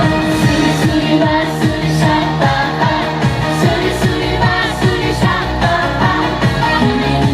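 Female trot singer singing live over a backing track with a steady dance beat, amplified through a PA.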